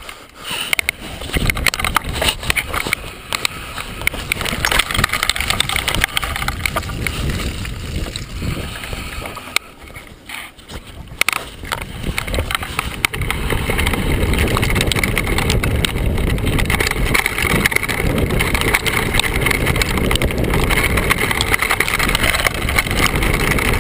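Mountain bike descending a rocky trail: tyres crunching and rattling over loose stones, the frame and chain clattering, with wind buffeting a body-mounted action camera. It is uneven at first, dips briefly a little before halfway, then stays loud and steady.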